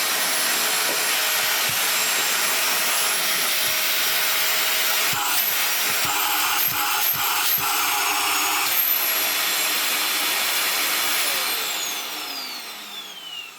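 Vax Air upright vacuum cleaner's motor running, a loud steady rush of air with a high whine, with a few knocks about halfway through. Near the end it is switched off and the motor winds down with a falling whine. The motor runs well, but the filter is clogged and the machine has almost no airflow.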